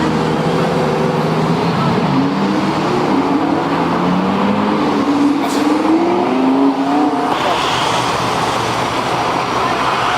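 Lamborghini engine revving, its pitch climbing and dropping back several times, with the sound changing to a broader rush about seven seconds in.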